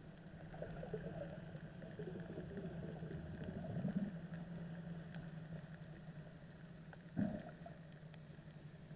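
Underwater recording of a steady low engine drone, typical of a boat motor heard through the water, with faint scattered clicks. Irregular gurgling runs through the first few seconds, and a single sharp knock comes about seven seconds in.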